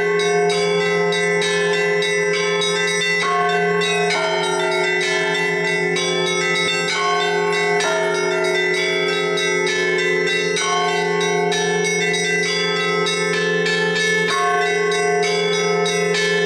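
Orthodox church bells rung by a bell-ringer: small bells struck in quick succession over the steady ringing of larger bells.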